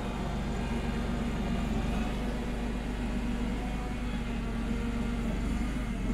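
Homemade wheel loader's engine running steadily under load as the machine drives through snow.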